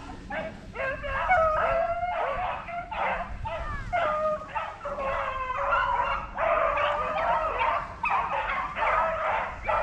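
A pack of rabbit hounds baying and yelping continuously while running a rabbit in full chase. Several dogs cry at once at different pitches.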